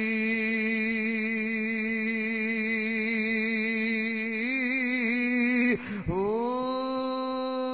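A man's voice chanting a Punjabi Sufi kalam, holding one long drawn-out note that wavers near the end. About six seconds in it breaks off briefly, then a second long held note begins.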